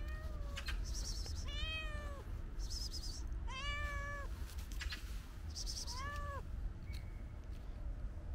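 Domestic cat meowing for food: the tail of one meow, then three drawn-out meows about two seconds apart, each rising and then falling in pitch.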